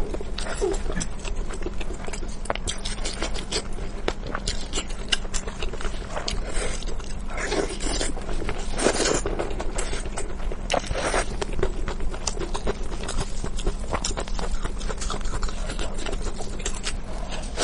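Close-miked eating: wet chewing and mouth clicks in quick, irregular succession, with occasional scraping, over a low steady hum.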